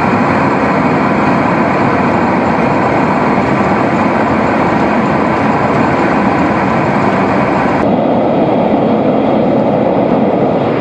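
Homemade plywood speaker cabinets playing a loud, steady rushing noise from a test-signal generator, with every pitch sounding at once and no tune or tone in it. About eight seconds in, the highs drop away and the sound turns duller.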